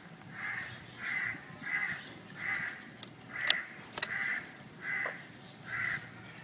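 A crow cawing over and over, about eight short hoarse caws evenly spaced under a second apart. A few sharp metallic clicks come around the middle, as the motorcycle's ignition key is handled.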